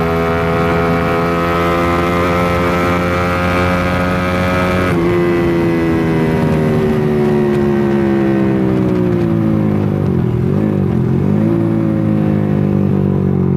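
Carburetted motorcycle engine running under way: the engine note climbs slowly, drops abruptly about five seconds in and then falls steadily as the bike slows, wavers briefly near ten seconds, then holds. The carburettor is mid-tuning, with only the main jet left to set.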